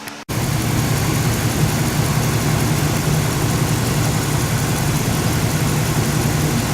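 1996 Dodge Ram Van 2500's engine idling steadily, cutting in abruptly a quarter second in. The engine has logged random-misfire codes.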